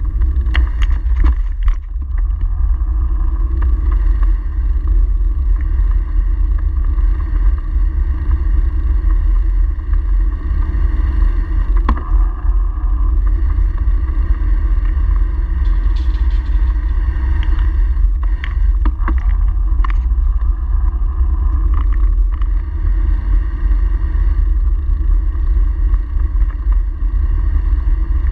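Steady low rumble of wind buffeting the microphone of a bicycle-mounted camera while riding, with road and tyre noise underneath. Short clicks and knocks come now and then, several of them near the start and a few more in the second half.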